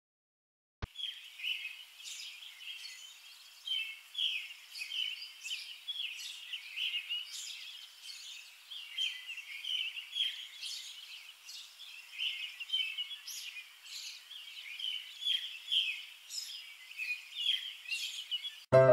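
Many small birds chirping in a dense, busy chorus of short calls. It starts suddenly just under a second in and cuts off abruptly near the end.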